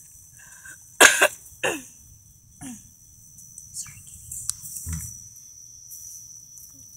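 A person coughing in a few short bursts, the loudest about a second in, over a steady high-pitched tone.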